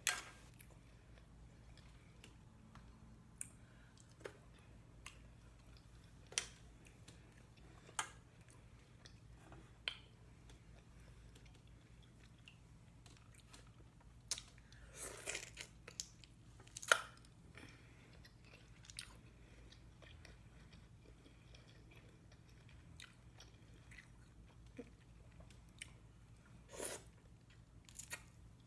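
Close-miked eating of boiled shrimp and mussels: quiet chewing and mouth sounds broken by scattered short, sharp clicks and crackles, with a cluster of louder ones about halfway through. A steady low hum runs underneath.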